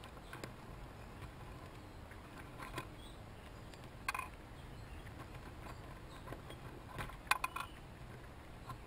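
Chipmunks shucking corn: faint, scattered crackles and clicks of gnawing and husking, with a quick cluster of clicks about seven seconds in, over a low steady rumble.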